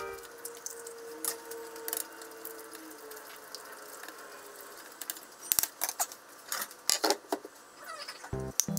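Long cooking chopsticks beating eggs in a shallow tray, with light irregular clicks as the chopsticks tap the tray. Background music comes back in near the end.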